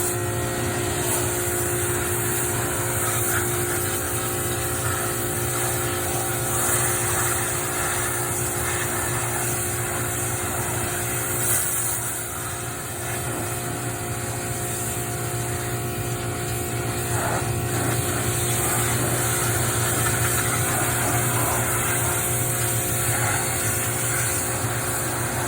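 Pressure washer running steadily, its pump and motor humming under the hiss of the high-pressure spray as it blasts caked dirt off an old tractor. It kicks in abruptly at the start as the trigger is pulled.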